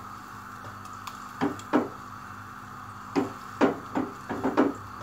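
A pot of kofta curry being rocked and swirled by its handle on a gas stove: its base knocks and scrapes on the burner grate in irregular knocks, a pair about a second and a half in and a quick cluster in the second half, over the steady sizzle of the yogurt masala frying.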